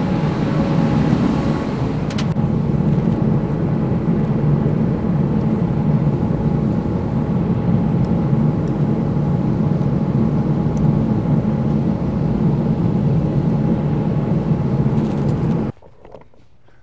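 Steady machine drone with a faint hum in it, cutting off suddenly about a second before the end; a light click about two seconds in.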